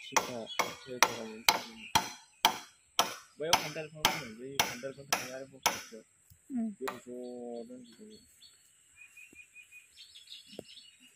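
Hammer blows on a wooden plank, about two a second, stopping about six seconds in. A short voice follows, and then birds chirp faintly.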